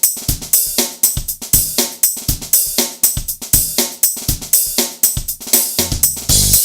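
Background music: a drum kit playing a steady beat with hi-hat and cymbals, kick drum and snare.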